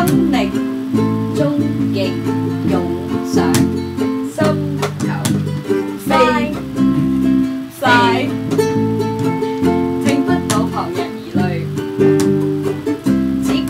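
Music played on a strummed acoustic guitar, steady repeating chords with a few higher picked notes.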